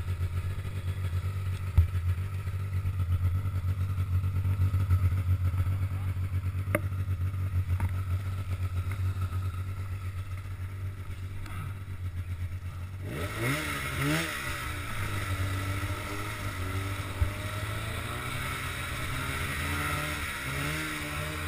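Polaris RMK snowmobile's two-stroke engine idling steadily, with a couple of sharp knocks in the first few seconds. About halfway through it revs up and runs under way, its pitch rising and falling over a rushing noise.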